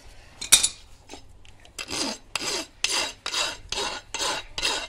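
Farrier's rasp drawn in quick strokes over the hoof wall and clenches of a shod horse's foot, about two rasping strokes a second starting about two seconds in. A single sharp click comes about half a second in.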